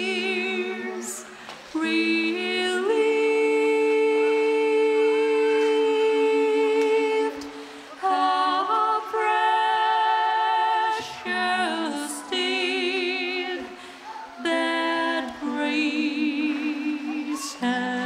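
Background music: a song with a singing voice holding long notes, some of them with vibrato.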